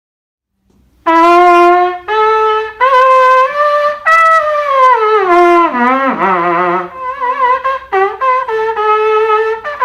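Brass pot trumpet (Büchsentrompete, a 16th-century trumpet) played solo. After about a second of silence it sounds a few held notes, then one note slides down to a low note about six seconds in, followed by a run of shorter notes.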